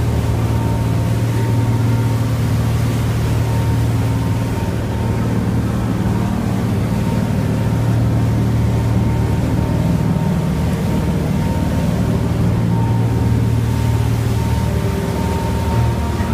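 Motorboat engine running steadily underway: a constant low drone with a rushing hiss over it.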